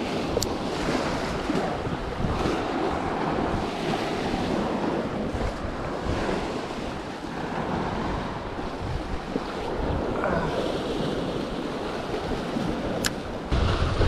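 Sea surf breaking and washing over shoreline rocks in a steady rush that swells and eases, with wind buffeting the microphone. A single sharp click about a second before the end.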